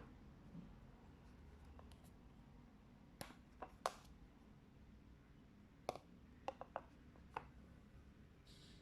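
Fluffy slime being squeezed and poked, giving short, sharp little clicks and pops in small clusters over a faint steady hum.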